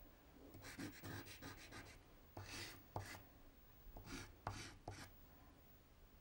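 Pastel stick rubbing and scratching across painted paper in faint short strokes. There is a quick run of them about a second in, then several more spread through the rest.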